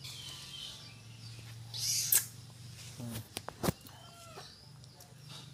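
Nursing newborn kittens giving a few faint, short squeaks, with a rustle and a couple of sharp clicks over a low steady hum.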